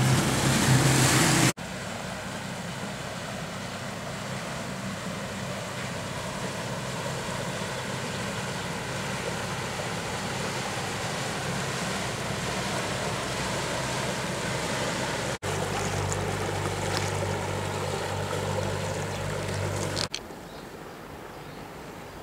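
Small motor barge's engine running steadily as it passes, over the rush of its churning wake. The low engine hum is loudest in the opening seconds and again in a stretch near the end. Between these, a long, quieter rushing of water and wind fills the gap, with abrupt cuts between shots.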